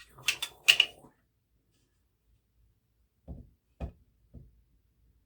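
Clicks and knocks of air-rifle parts being handled and pushed into the gun's tube: a quick cluster of three sharp clicks in the first second, then three duller knocks about half a second apart later on.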